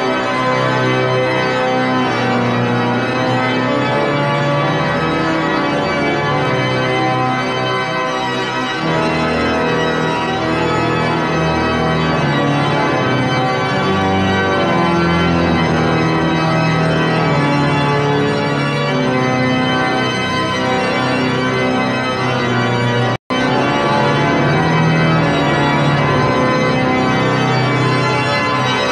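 Passau Cathedral's large pipe organ playing full, sustained chords that shift from one to the next. Deep bass pedal notes join about nine seconds in. The sound cuts out for a split second about three-quarters of the way through.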